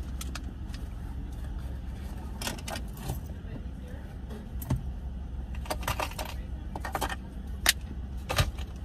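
Car engine idling as a low steady hum heard inside the cabin, with rustling and a run of sharp clicks and rattles as a plastic water bottle and drive-thru items are handled; the loudest click comes near the end.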